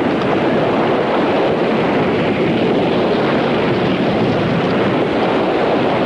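Steady rushing roar of surf breaking on the shore, an even wash of noise with no single wave standing out.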